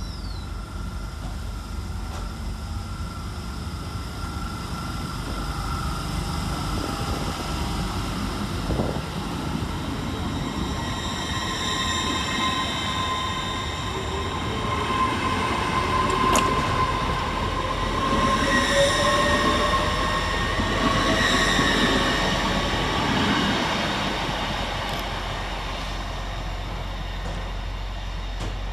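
Hitachi Class 802 bi-mode train pulling out and accelerating, its whine made of several steady tones, some rising in pitch. It gets louder to a peak about two-thirds of the way through as it passes, then fades.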